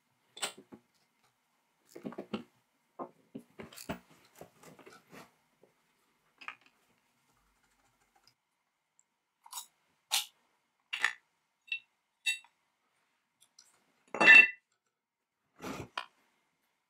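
Sparse clicks, taps and scrapes of a screwdriver and small metal parts as the aluminium handle of a vintage electric chainsaw is unscrewed and taken apart, with one louder ringing metal clink near the end.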